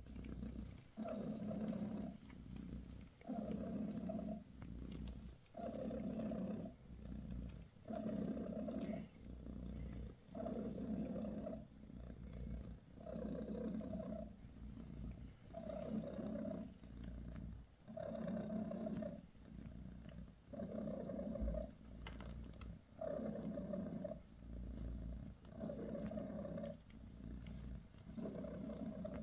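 British Shorthair cat purring in a steady rhythm, the purr swelling into a long pulse about every two and a half seconds with short quieter gaps between.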